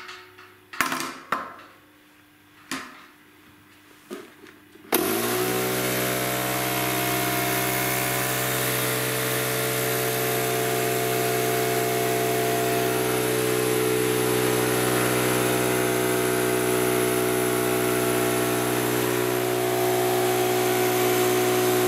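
Einhell 24-litre, 1.6 hp oil-free air compressor switching on about five seconds in. Its motor and pump rise briefly in pitch, then run loud and steady, pumping up the tank. Before it starts there are a few light knocks from handling the fittings.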